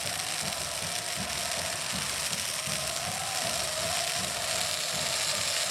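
Steady hiss of crowd noise at a football match, with a faint wavering held tone running through it.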